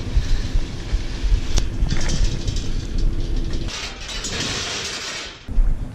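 A vehicle running: a steady low rumble with hiss, dipping briefly about five and a half seconds in.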